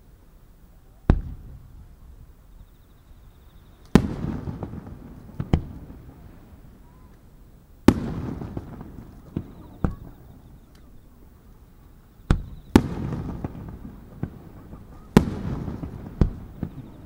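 Aerial firework shells bursting one after another: about ten sharp bangs, some in quick pairs and a couple fainter, each followed by a low rolling echo that fades over a second or two.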